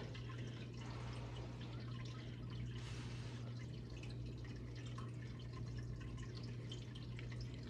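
Faint eating sounds: small wet clicks of chewing a spoonful of warm casserole and a metal spoon, over a steady low hum. A brief soft breathy hiss about three seconds in.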